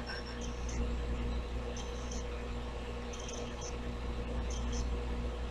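Low room tone with a steady electrical hum, broken by a few faint, brief high squeaks.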